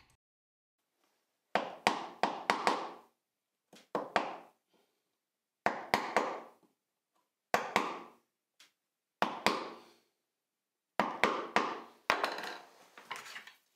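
Wooden mallet striking a bench chisel in about six short bursts of a few sharp blows each, with pauses between. The chisel is chopping across the grain of a pine board to clear the waste between dovetail pins.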